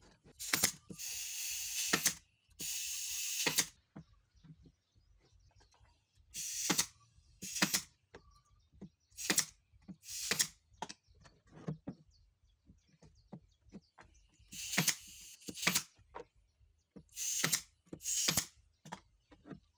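Pneumatic brad nailer firing into glued curved wooden segments: about a dozen sharp shots, each with a short hiss of exhaust air, in irregular clusters with pauses between.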